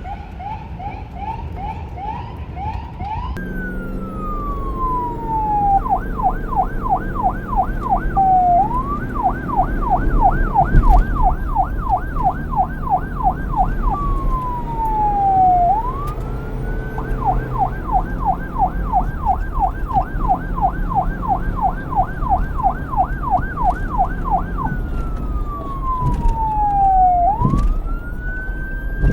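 Electronic police car siren switching between a slow wail, which falls in pitch and then climbs back, and a fast yelp cycling about four times a second. A quicker high warble is heard in the first few seconds, and a low vehicle and traffic rumble runs underneath.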